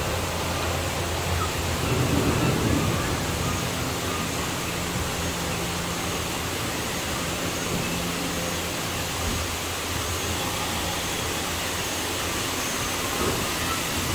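Steady rushing ambience of an indoor boat ride gliding along its water channel, with a low hum under it. It swells briefly about two seconds in.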